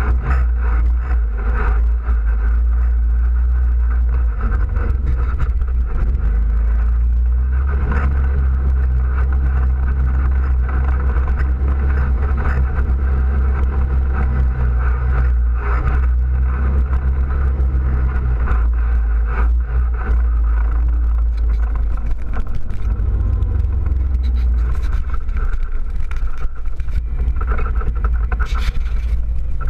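ATV engine running steadily while riding a gravel trail, heard close from the machine's front end, with occasional knocks and rattles from bumps. The engine note rises briefly about two-thirds of the way through, then settles back.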